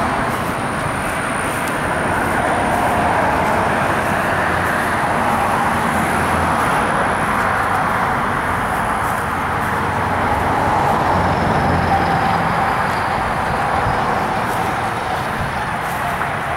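A fire engine idling steadily, a low engine drone under a broad rushing noise.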